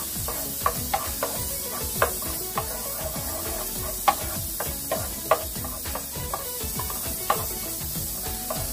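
Plastic spatula scraping and knocking on the bottom of an aluminium pot while stirring minced garlic in butter: irregular ringing clicks a couple of times a second over a light sizzle.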